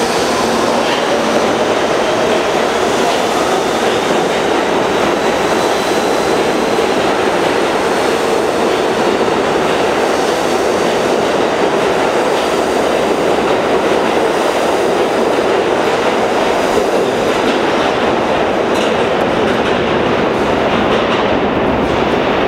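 Train of R68 subway cars departing an underground station, running past with a steady, loud rolling noise of wheels on rail. A faint high whine fades out over the first few seconds.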